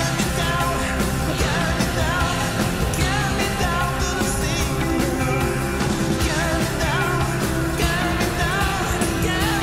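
Background music: a song with a singer's voice over a band.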